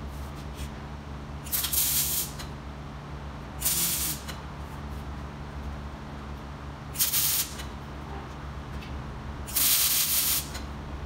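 Wire-feed (MIG) welder striking four short arcs, crackling tack welds on a thin steel 55-gallon drum, the last one longest, near the end. A steady low hum runs underneath.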